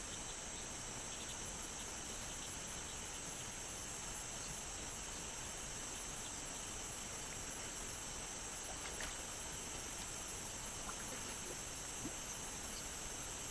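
Steady high-pitched chorus of forest insects, crickets or cicadas, droning without a break over an even background hiss, with a few faint ticks.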